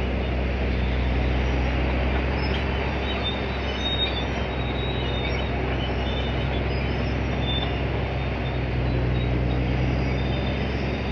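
1956 Caterpillar D9 crawler tractor's diesel engine running steadily under load while it works with a cable scraper, with faint high squeaks now and then.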